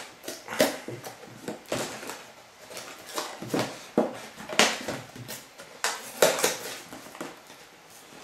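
A cardboard LEGO set box being handled and opened by hand: irregular scrapes, taps and knocks of fingers and cardboard as the box is turned over and its end flap is worked open.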